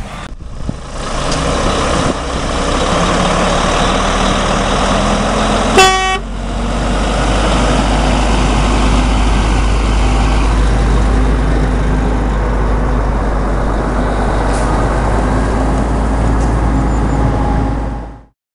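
Semi-truck with a trailer of round straw bales driving by on a snowy road: steady engine and tyre noise with a deep rumble. A short horn toot comes about six seconds in, and the sound cuts off suddenly near the end.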